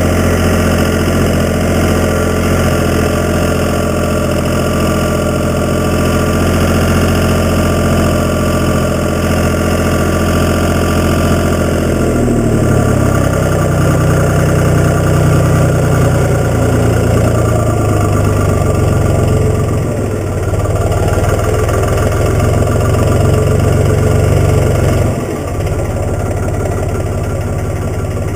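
Case 385 diesel tractor engine running steadily at idle, then throttled up about halfway through, its engine speed rising and wavering, with a couple of brief dips near the end.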